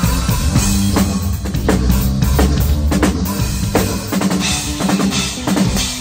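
Electric bass guitar and acoustic drum kit jamming together: a bass line under a kick-and-snare groove with rimshots, and cymbals splashing out near the end.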